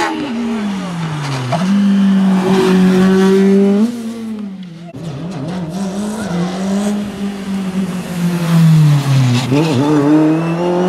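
Single-seater formula race car engines, two cars in turn, each run loud and close. The first car's engine note drops sharply, then holds high as it accelerates. After a break about five seconds in, a second car's revs fall away for a corner and climb again as it accelerates off.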